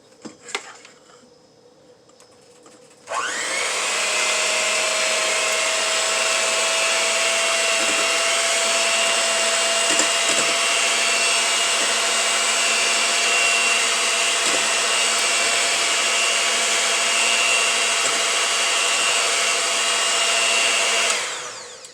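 Electric blender running steadily, whirring as it blends eggs. It switches on about three seconds in and stops near the end.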